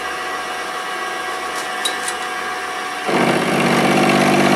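Small milling machine spindle running with an end mill turning; about three seconds in, the cutter bites into the cam blank and a louder, steady pitched cutting tone sets in.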